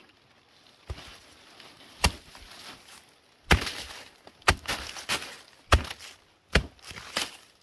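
Chopping with a blade: about eight sharp strikes at uneven intervals, coming faster in the second half, each followed by a short rustle.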